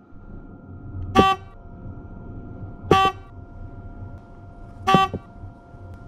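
Ford Mustang's electronic warning chime repeating: four short pitched chimes about two seconds apart over a faint steady tone.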